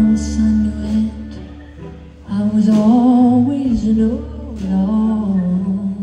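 Live folk song: a violin and an acoustic guitar playing held, wavering notes, with a woman's voice singing.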